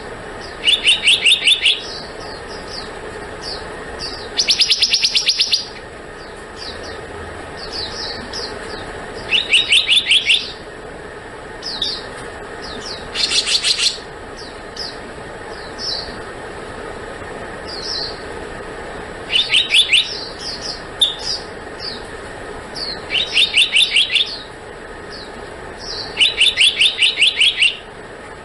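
Black-naped monarch calling: a rapid series of about eight to ten quick, evenly spaced high notes, lasting about a second and repeated every few seconds. Short single notes are scattered in between, over a steady low background hum.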